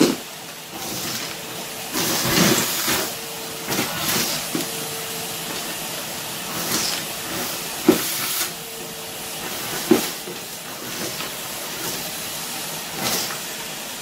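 Numatic Henry vacuum cleaner running with a steady hiss of suction as its wand sucks up wood-shaving sawdust, with short louder rushes several times as clumps of shavings are drawn in.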